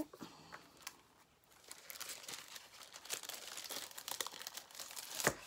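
Sheets of patterned craft paper rustling and crackling as they are handled and leafed through, with a sharper click near the end.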